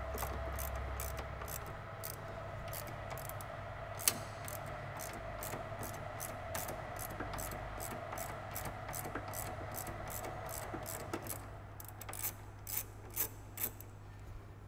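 Ratchet wrench with a 10 mm socket clicking in a steady run, a few clicks a second, as it loosens the brake line bracket bolt. One louder click comes about four seconds in and a few more near the end.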